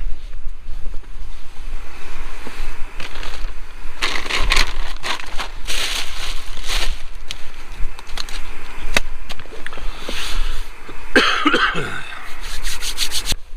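Wind buffeting the microphone in a low, gusting rumble, over rubbing and scraping handling noise with a few sharp clicks.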